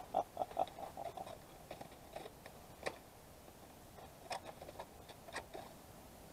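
Scissors cutting through cardboard packaging: a few separate crisp snips and crunches spread over several seconds.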